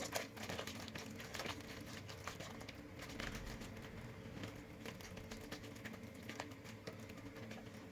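Hands mixing raw gazelle meat with spices and a little water in a bowl: faint, irregular small clicks and rustles.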